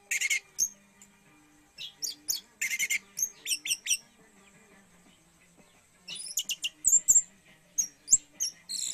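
Orange-headed thrush singing in quick runs of sharp, high chirps and short falling whistles. The bird pauses briefly about halfway through, then starts a new run.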